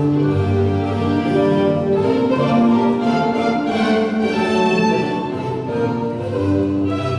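Baroque string music for a courante: violins play the melody over a bowed bass line.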